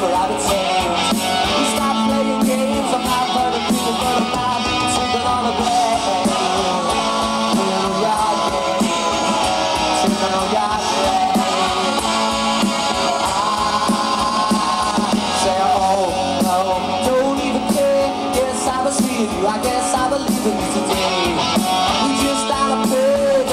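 Rock band playing live: electric guitars, drum kit and a male lead vocal singing at the microphone, picked up by a camcorder microphone in the audience.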